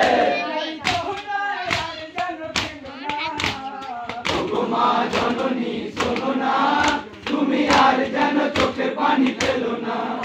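Group of men singing a Muharram matam lament together while beating their chests in unison, the hand strikes falling about every 0.8 seconds.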